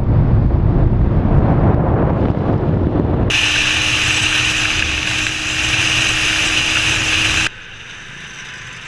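Wind rushing over the microphone of a camera on a moving motorbike, with the road and engine noise of the ride. The sound switches abruptly about three seconds in to a hissier rush with a steady hum. Near the end it drops to a much quieter steady noise.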